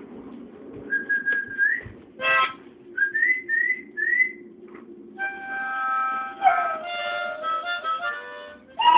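Blues harmonica being played: short rising bent notes about a second in, then held chords from about five seconds in.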